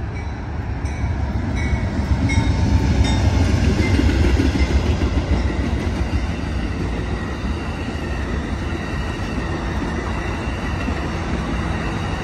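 Two GE P42DC Genesis diesel locomotives pass close by, their engine rumble loudest a few seconds in. This gives way to the steady rolling noise of bilevel Superliner passenger cars going by.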